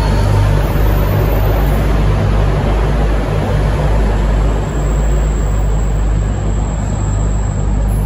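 V/Line VLocity diesel multiple unit passing close by as it departs, its diesel engines giving a steady low drone under the rumble of wheels on rail.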